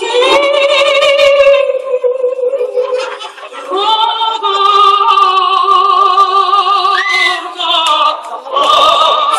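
A woman singing in operatic style with a wide vibrato, holding two long notes with a short break between them.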